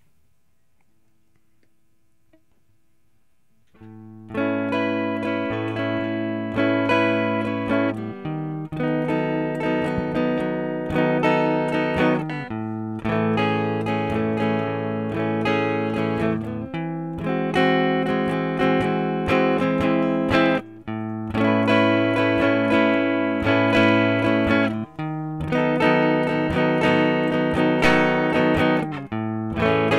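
Electric guitar, a Fender Stratocaster-style solo guitar, starting about four seconds in after near silence. It plays a slow, sustained chord progression, the chord changing about every four seconds.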